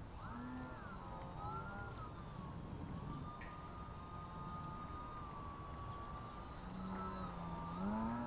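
Electric outrunner motor (Sunnysky 1800kv) spinning a GWS 8x4.3 slow-fly propeller on a small foam 3D RC plane, a buzzing whine with a thin high whine above it. Its pitch rises and dips as the throttle changes in the first second or two, holds steady through the middle, then climbs again near the end.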